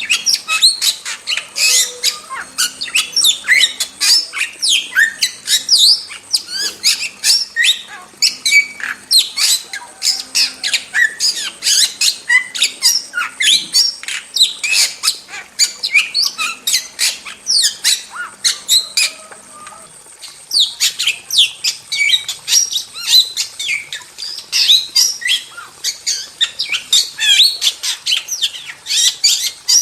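Starling song: a fast, continuous run of sharp squawks, chirps and whistling notes, with a short pause about twenty seconds in.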